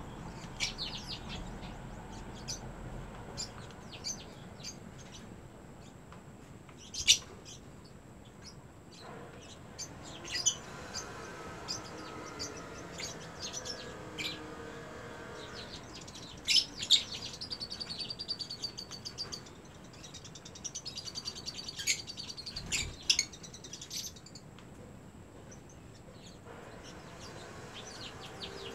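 Lovebirds chirping: sharp, high chirps scattered throughout, with rapid chattering runs about two-thirds of the way in and again a few seconds later.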